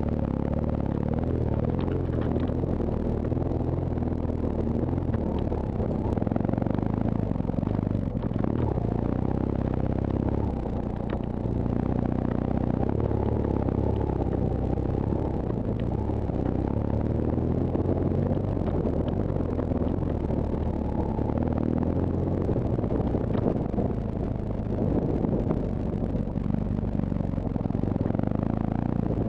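BMW R1200GS boxer-twin engine running steadily off-road, its note shifting now and then with the throttle, over wind noise and occasional knocks and rattles from the bike.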